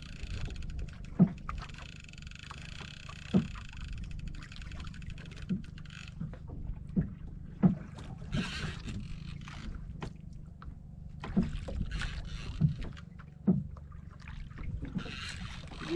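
Water slapping and lapping against the hull of a small wooden outrigger boat adrift, over a steady low wind rumble on the microphone, with sharp knocks every second or two. About a second in, a few seconds of high hiss with fine rapid ticking.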